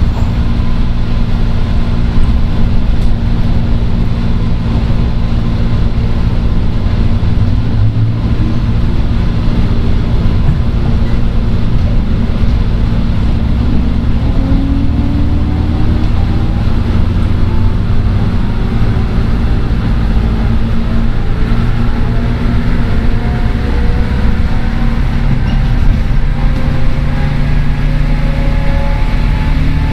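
103 series electric train heard from inside its motor car (MoHa 103), running under a steady low rumble of wheels on rail. From about seven seconds in, the traction motors' whine rises slowly and steadily in pitch as the train gathers speed.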